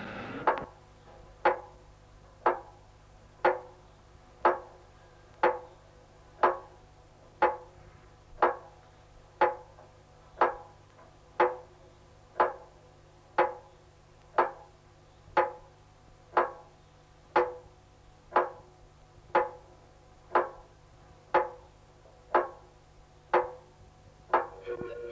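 Slow, regular clock ticking, one loud tick every second with a short ringing tail after each.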